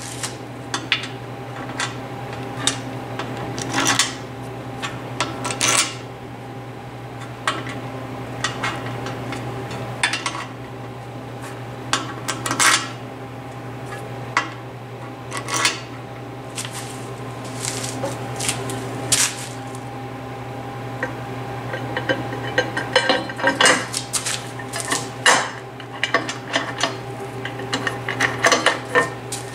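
Small aluminum spacers and nuts clinking and clattering as they are set down and fitted onto threaded studs on a metal drill press table: scattered sharp clicks, coming thicker near the end. A steady low hum runs underneath.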